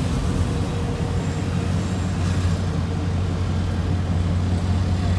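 Steady low drone of a vehicle's engine and tyre noise heard from inside the cabin while driving.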